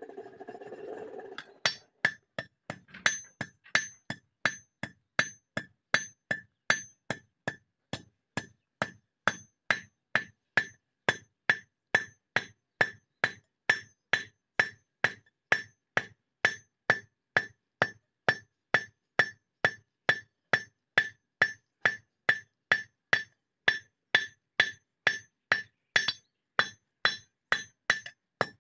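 Blacksmith's hand hammer forging a red-hot sickle blade on a steel anvil block: steady, evenly paced ringing blows, a little over two a second, starting about a second and a half in.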